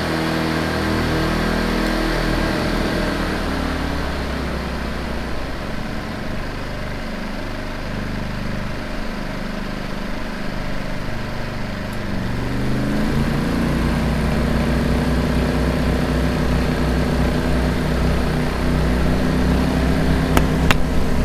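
Two WEN 2000-watt inverter generators running in parallel under the load of a 1500-watt heater on high. Their engine note wavers and shifts for several seconds as both are switched to eco mode, then settles back into a steady run.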